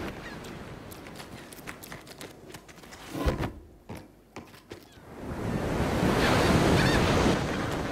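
Faint hiss with scattered light clicks and a thump about three seconds in. About five seconds in, a rushing ocean-wave surge swells up, holds for about two seconds and then eases.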